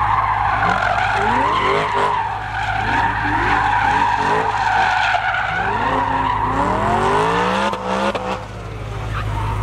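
Supercharged BMW E93 M3's 4.0-litre V8 revving up again and again in rising sweeps, with its tyres squealing steadily through a long slide.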